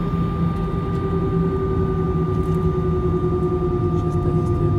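Cabin noise of a jet airliner taxiing: a steady low engine rumble with a whine that slowly falls in pitch and a higher steady tone above it.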